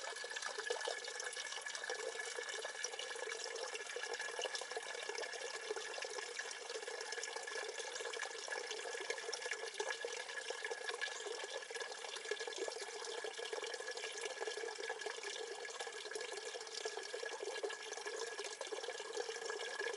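Water pouring steadily from a vented plastic water jug into a black plastic camp shower bag, splashing into the water already inside it.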